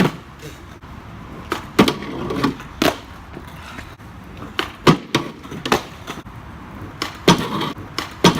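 Skateboard rolling on pavement with a string of sharp clacks from the board and trucks striking the ground, about six over several seconds, during repeated attempts at a trick.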